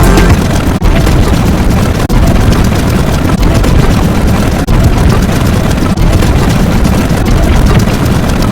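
Very loud, dense rumbling noise, heavy in the lows, broken by short dips roughly every second and a quarter.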